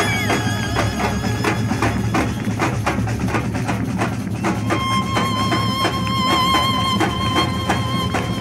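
Samba drum band playing: surdo bass drums, snares and repiniques beating out a fast, steady rhythm. A high held note comes in over the drums about halfway through.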